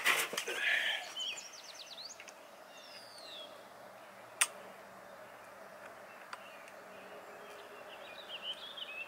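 Handling of a Hatsan BullBoss air rifle's action after loading its magazine: rustling at the start, then one sharp click about four seconds in and a fainter click a couple of seconds later. Birds chirp in the background near the start and again near the end.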